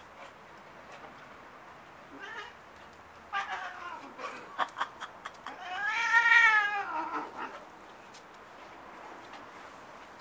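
Orange tabby cat yowling in protest as a dog mouths and pins it: a few short cries a little past three seconds in, then one long, loud yowl that rises and falls in pitch about six seconds in. A few sharp clicks come between the cries.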